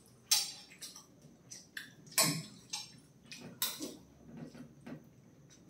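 Teaspoons and a fork tapping and scraping on plates, one of them stainless steel, as parotta is cut and eaten: scattered sharp clinks, the loudest just after the start, a little after two seconds and near four seconds.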